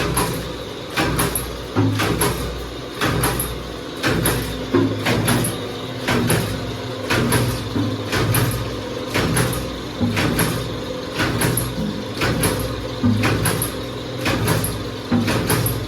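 Automatic paper dona (bowl) making machine running, its press cycling with a regular clack about once a second, each stroke with a short hiss.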